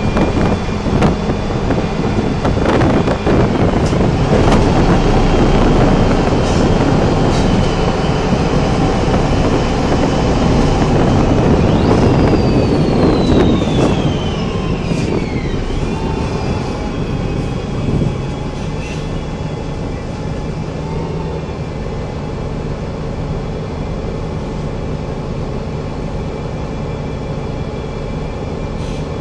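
Ride inside a city bus: the rumble of the engine and road with rattling and knocking of the body, then a whine that falls in pitch as the bus slows. The sound then drops to a quieter, steady running as it comes to a stop.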